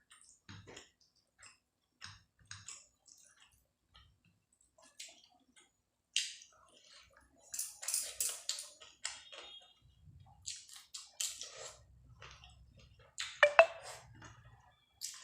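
Close-miked chewing of curry and rice: wet mouth clicks and smacks, sparse at first and then denser and louder from about six seconds in. A brief squeak near the end is the loudest sound.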